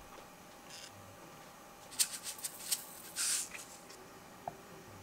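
Sesame seeds being shaken out over cooked rice in a glass bowl: a quick run of light clicks, then a short rattle, and a faint tick near the end.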